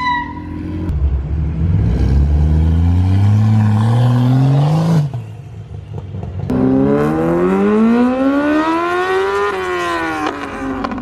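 A BMW sedan's engine accelerating hard: its pitch climbs for about four seconds, drops off briefly around the middle, then climbs again for about three seconds before falling away near the end.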